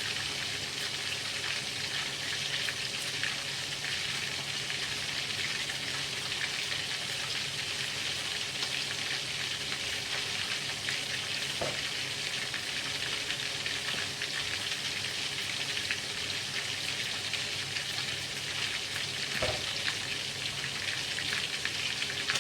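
Pieces of duck frying in hot oil in a pan: a steady sizzle with fine, continuous crackling.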